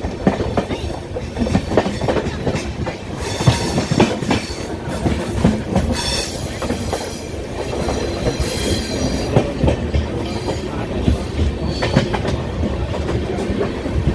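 Indian Railways express train wheels running over the track, with irregular clicks and knocks from the rail joints. Twice in the middle the wheels give out a high-pitched squeal lasting a few seconds.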